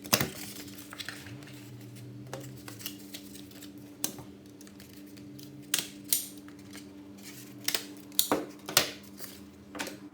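Stapler clacking shut on cardboard a few times, with card being handled in between; the clacks are sharp and spread out, with a cluster near the end. A faint steady low hum runs underneath.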